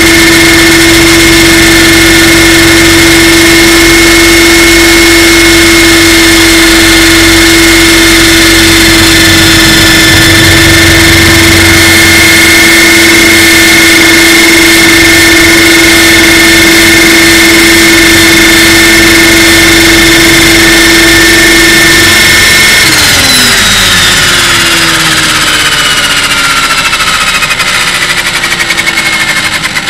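Electric RC helicopter's motor and drivetrain whining at a steady pitch with rotor noise, close to the onboard camera. About 23 seconds in the motor is cut, and the whine slides down in pitch as the rotor head spins down after landing.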